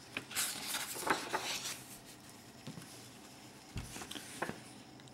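Paper rustling for about a second and a half as a picture-book page is turned, then a few faint taps and a soft thump from handling the book.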